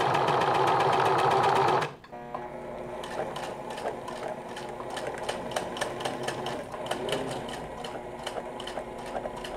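A Janome serger (overlocker) runs at speed for about two seconds and then stops abruptly. After that a Singer sewing machine stitches more quietly, with a quick, regular ticking of the needle.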